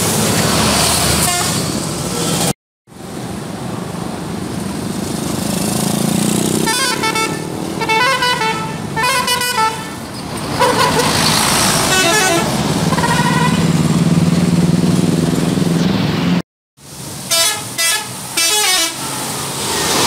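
Telolet musical air horns on Budiman buses, playing their quick multi-note telolet tune in several bursts over the low rumble of the bus engine.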